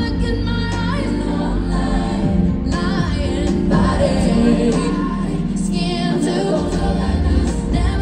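A woman singing an R&B song live into a microphone over a backing track with a steady bass line, heard through a concert PA from the audience.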